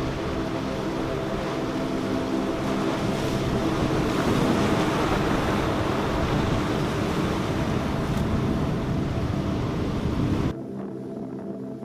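Boat engines running, a steady droning hum under heavy wind and wave noise that grows louder in the middle. About ten seconds in, the sound cuts off abruptly to a quieter hum.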